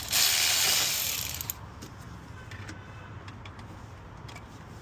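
Pneumatic ratchet running for about a second and a half, then trailing off, followed by a few light clicks of tools being handled.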